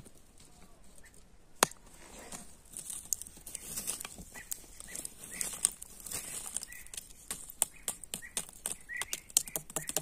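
A wooden stick raking and poking through a bed of charcoal and ash, with lumps of charcoal clicking and rustling irregularly. The raking starts about two and a half seconds in, after a single sharp click.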